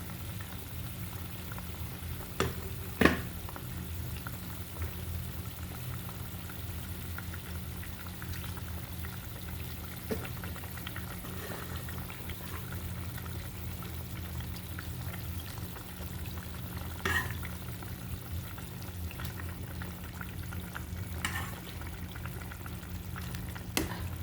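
Vegetable curry bubbling at the boil in a pot over a steady low hum, with about six sharp clinks of a utensil against the pot, the loudest about three seconds in.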